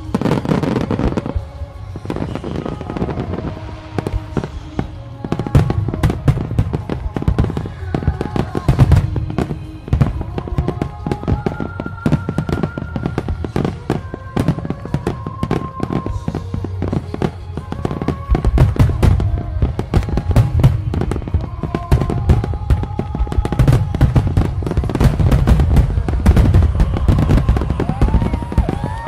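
Fireworks display: aerial shells bursting in rapid succession with dense crackling and low booms, with music playing alongside. The booms grow heavier and more continuous in the last third.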